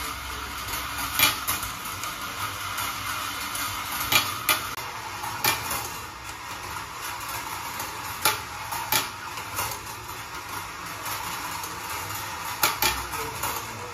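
Glass marbles rolling along the steel-wire rails of a rolling ball sculpture: a steady rolling hum broken by sharp clinks at irregular intervals, some in quick pairs, as marbles strike the wire track.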